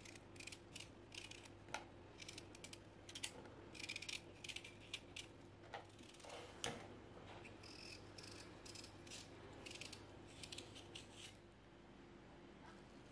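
Small paring knife slicing and shaving the green skin off watermelon rind: a run of quick, crisp cutting strokes in irregular bursts that stop about eleven seconds in.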